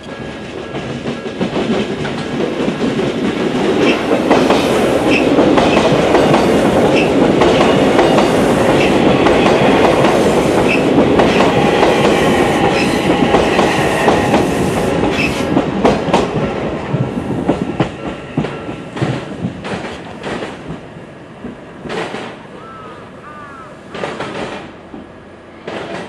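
Odakyu Enoshima Line electric commuter train passing by: it grows louder on approach, then runs loud with a regular clickety-clack of wheels over the rail joints. It fades away after about sixteen seconds, followed by a few separate sharp knocks.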